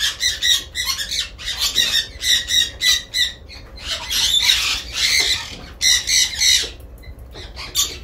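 Red lory giving harsh squawks in quick runs, with a brief lull about seven seconds in, while it is held and playfully squeezed in a hand.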